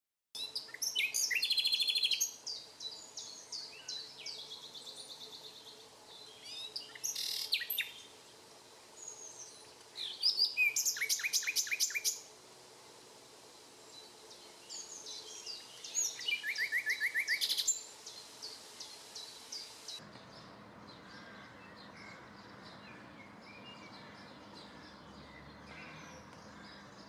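Wild songbirds singing: several loud phrases of chirps and rapid trills, around two, seven, eleven and seventeen seconds in, with quieter calls between. From about twenty seconds in only faint birdsong remains.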